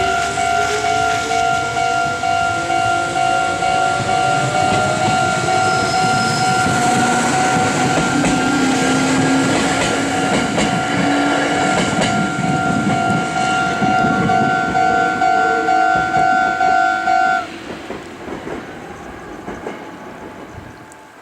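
Japanese railway level-crossing alarm ringing a fast, steadily repeated electronic bell tone while a Meitetsu electric train runs over the crossing, its wheels clattering on the rails. A whine rises in pitch in the first few seconds. The alarm cuts off suddenly near the end, leaving the train's rumble fading away.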